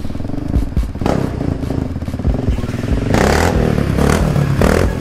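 Yamaha Raptor 700 quad bike's single-cylinder engine revving on the throttle as the rider lifts the front wheels into a wheelie. It gets louder about three seconds in as the quad comes close.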